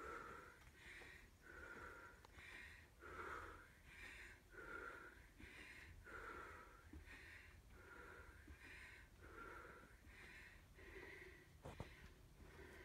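Faint, rhythmic breathing of a man exerting himself in cardio exercise, a breath in or out about every three-quarters of a second. A single sharp click near the end.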